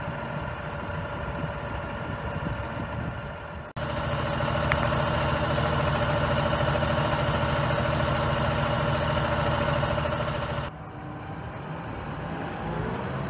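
Fendt 824 SCR tractor's six-cylinder diesel engine idling steadily, louder and closer for a stretch in the middle. Near the end the tractor pulls away and the engine's pitch rises as it drives off.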